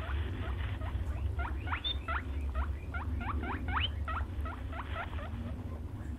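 European brown hare squeaking: a rapid series of short, sharply rising squeaks, about three a second, over a steady low rumble.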